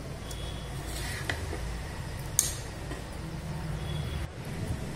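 A few light clinks and knocks of a utensil against a steel vessel as fried tomatoes are tipped onto roasted brinjal slices, over a steady low hum. The sharpest clink comes about two and a half seconds in.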